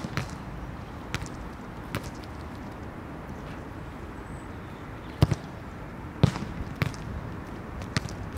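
Soccer ball being kicked for long passes and rebounding off a tall wall and wet pavement: a string of sharp thuds, with a gap of about three seconds in the middle, over steady outdoor background noise.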